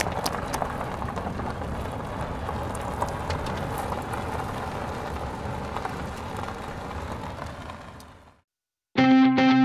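Dubbed-on sound effect of dirt and gravel settling after a crash: a steady rushing, crackling noise with scattered ticks that fades out about eight seconds in. After a brief silence, electric guitar music starts near the end.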